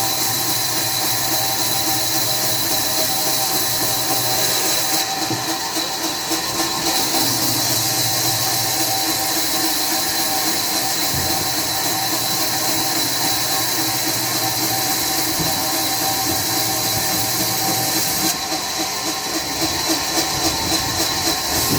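Sawmill machinery running steadily with a loud high hiss and a constant whine. The hiss changes briefly about five seconds in and again near the end.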